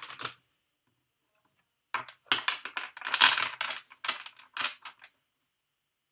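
A deck of tarot cards handled and shuffled by hand: a brief rustle at the start, then after a pause a quick run of papery flicks and taps lasting about three seconds.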